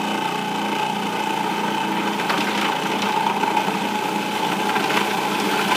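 Food processor motor running steadily, its blade chopping arugula, garlic and walnuts into pesto.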